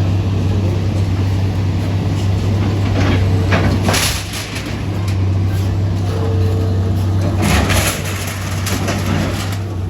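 An engine running steadily with a deep hum, with a few short sharp noises about four seconds in, near eight seconds and again just after nine seconds.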